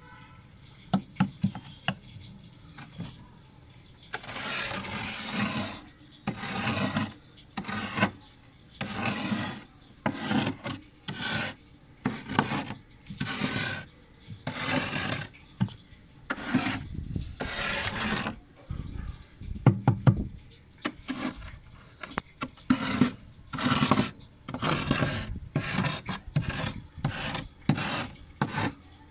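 Metal spoon scraping thick, packed frost in a freezer, in repeated scraping strokes about one a second, with a few sharp clicks of metal on ice.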